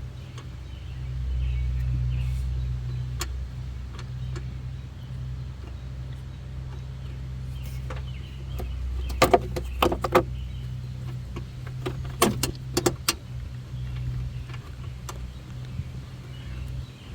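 Sharp clicks and knocks of work on the truck's engine parts, in two short clusters about nine and twelve seconds in, over a steady low hum.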